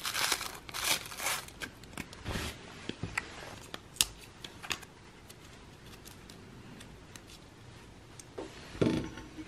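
Handling of a thin card rolling tip: crisp paper rustles and small sharp clicks as a filter tip is torn from a RAW tips booklet and folded into a crutch, busiest in the first half, then quieter, with a brief louder rustle near the end.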